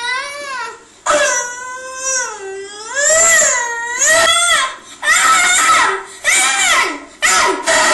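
A child wailing and sobbing: long, high, wavering cries for the first few seconds, then shorter sobs in quick succession from about five seconds in.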